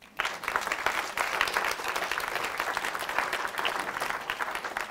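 Audience applauding, many hands clapping together; it starts a moment in and holds steady.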